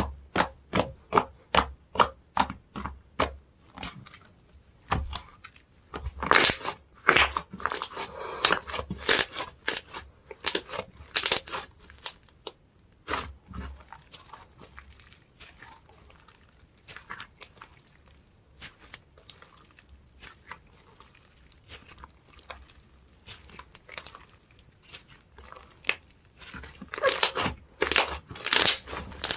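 Hands squishing and pulling a tacky slime, giving crisp sticky clicks and crackly pops. They come about two a second at first, turn into dense crackling bursts a few seconds in, thin out, then grow dense again near the end.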